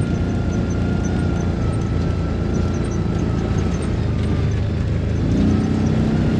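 A farm vehicle's engine running steadily while driving over rough ground. Its note rises a little about five seconds in.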